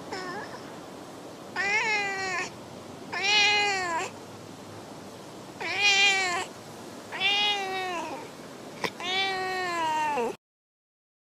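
Stray cat meowing repeatedly while being stroked: about five drawn-out meows, each rising and then falling in pitch, in a sultry voice rather than a harsh yowl. There is a fainter short call at the start, and the sound cuts off suddenly near the end.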